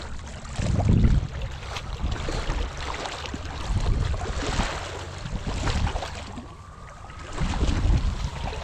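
Chest waders sloshing through shallow creek water as a person wades toward the bank, with a heavy swish of water at each stride, coming at uneven intervals of one to two seconds.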